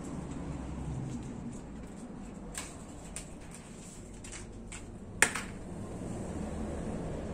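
Light clicks and taps from handling a small wire-mesh cube and a lattice basket, with one sharp click about five seconds in as the mesh cube is set down on the paper, over a steady low hum.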